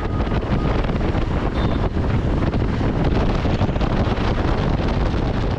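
Wind buffeting the camera microphone on a KTM 390 Adventure riding at road speed: a loud, steady rush, heaviest in the low end, that covers the engine.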